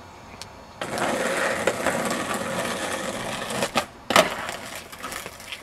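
Skateboard wheels rolling over rough asphalt for about three seconds, then a short click and a loud clack as the board hits the pavement with the rider coming off it. The board then rolls on more quietly.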